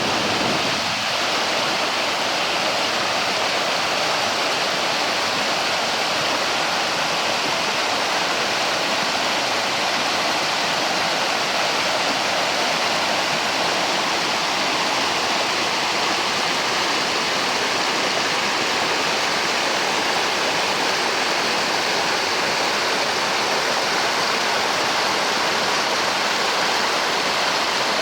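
Creek water flowing, a steady, even rush with no change in level.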